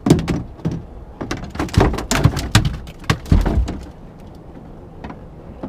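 A freshly landed blue catfish flopping on the boat deck: a quick, irregular run of loud knocks and thuds for about four seconds, dying away near the end.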